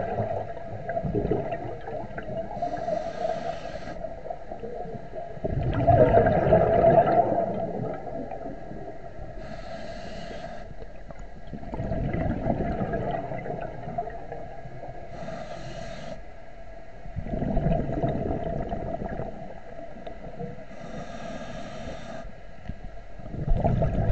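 Scuba diver breathing through a regulator underwater: a hissing inhale, then a louder burst of bubbling exhaust, repeated about four times.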